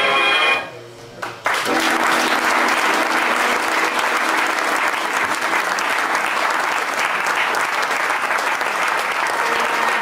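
Audience applauding, with music faintly underneath. The applause starts suddenly about a second and a half in, just after the music stops.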